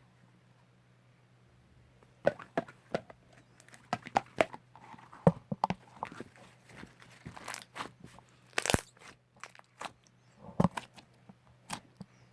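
Slime being pressed and worked by hand, giving irregular sharp pops and clicks that start about two seconds in.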